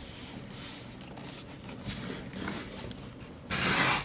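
Cardboard shipping box handled and turned over on a wooden table: faint rubbing, then a loud scraping rasp of cardboard dragged across the tabletop lasting about half a second near the end.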